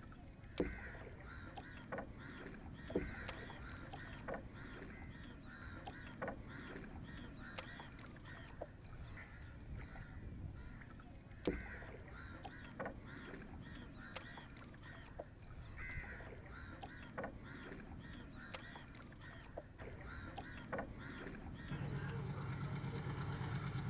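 Riverside ambience with birds calling over and over and sharp wooden knocks at irregular intervals, which fit a punting pole striking a small wooden boat. About 22 seconds in, a low steady engine rumble sets in and the overall level rises.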